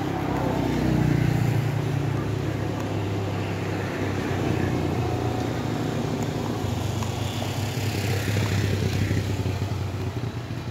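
A vehicle engine running close by. Its pitch falls over the first second or two, then it settles into an even low hum.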